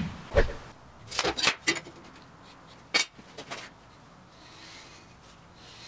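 Pieces of steel square tubing knocked and set down on a steel tabletop: two heavy knocks, then a quick cluster of ringing metallic clinks, and a sharp click about three seconds in.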